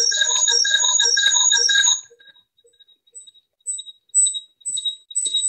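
An electronic alarm or ringtone beeping rapidly, about four or five pulses a second, with several tones at once. It stops about two seconds in. A few shorter, fainter high-pitched beeps follow, the last of them a little louder.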